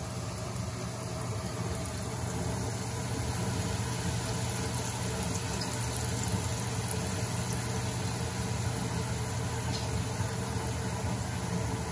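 Thin strips of sweet dough (crostoli) sizzling as they deep-fry in hot oil in a frying pan, a steady hiss over a steady low hum, growing a little louder a few seconds in.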